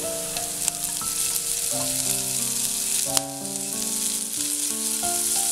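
Garlic, green chilli, carrot and cabbage sizzling steadily in a hot wok on a high flame as shredded boiled chicken is scraped in from a plate with a spatula. There are two sharp clicks of the spatula, about a second in and about three seconds in.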